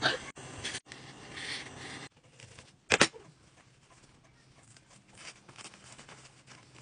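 Scrubbing and sloshing of a face mask in a steel pot of water for about two seconds. After a cut there is a loud sharp double knock, then faint crinkling as the wet mask is unfolded by hand.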